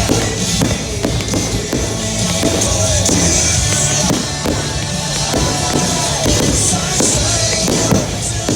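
Fireworks bursting with repeated bangs and crackles over loud music, which keeps playing throughout.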